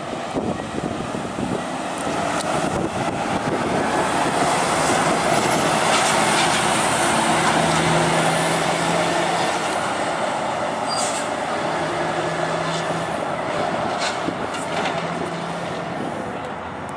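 A convoy of cars and a semi-truck driving past, with engine drone and tyre noise that swells to its loudest in the middle as they pass, and a few sharp clicks.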